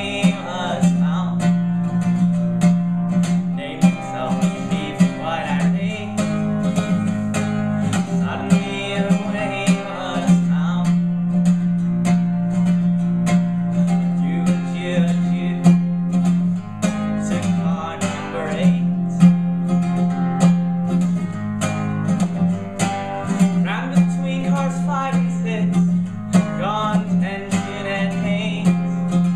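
A man singing to his own strummed acoustic guitar, a solo live performance. The strumming keeps a steady rhythm, with sung phrases coming in and out every few seconds.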